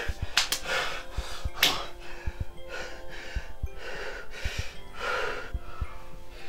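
A man gasping and breathing heavily in distress, with short low thumps between the breaths and a held musical drone beneath.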